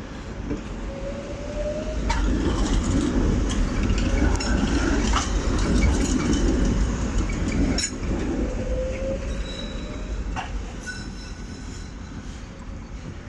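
Old-generation tram passing on street rails: a low rumble that builds about two seconds in, stays loud for several seconds, then fades away. A few sharp clacks from the wheels over rail joints and a faint thin wheel squeal ride on top.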